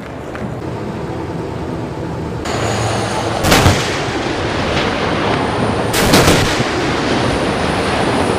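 A tank's main gun firing twice, two sharp heavy blasts about two and a half seconds apart, over a steady rumble of armoured-vehicle engines.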